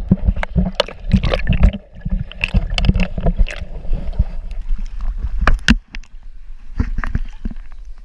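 Sea water heard through a camera held just under the surface: a muffled low churning and gurgling, with many sharp knocks and clicks as a swimmer moves the water around it. It eases off briefly a little before the camera comes back up near the end.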